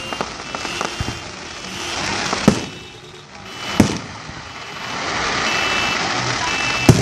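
Fireworks going off: a few small cracks, then three loud bangs about a second or more apart, with a crackling hiss swelling between the last two. A car alarm beeps in bursts behind them.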